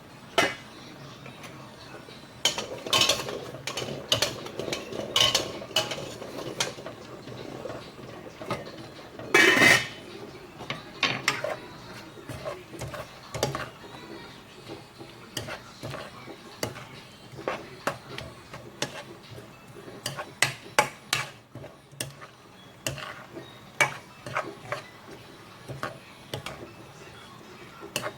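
Kitchen utensils clinking and knocking against pots and dishes during cooking, in irregular knocks with one louder, longer scrape about nine seconds in.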